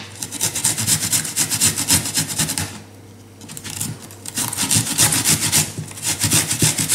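Garlic being grated on a flat stainless-steel hand grater over a clay tagine dish: quick, rhythmic rasping strokes in three runs, with a pause of about a second and a half around three seconds in and a brief one near six seconds.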